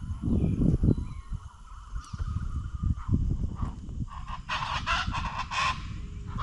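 Birds calling loudly, with a rapid run of repeated calls from about four seconds in, over a steady low rumble.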